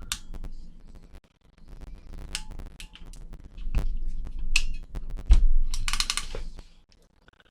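Iwiss ratcheting crimper clicking through its ratchet as the handles are squeezed down on a small winged terminal, with a string of irregular clicks and knocks and some handling noise. The terminal sits in the die the wrong way round, which gives a bad crimp.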